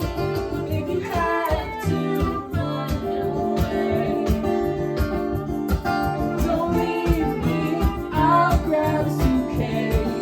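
Acoustic band music: acoustic guitars strumming a steady rhythm, with a melody line that slides up and down about a second in and again near the end.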